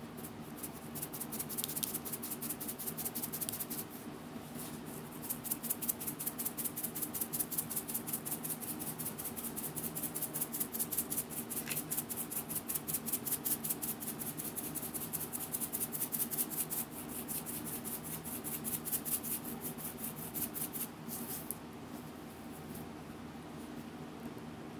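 Small shaker bottle of candy sprinkles shaken hard and fast, the sprinkles rattling inside in quick, even strokes several times a second, with a few short breaks; the shaking stops near the end.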